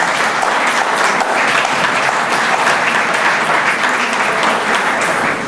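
Audience applauding steadily, dying away at the very end.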